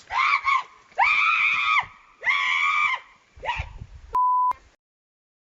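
A person screaming in several long, drawn-out cries, followed by a censor bleep about four seconds in; the sound then cuts off to silence.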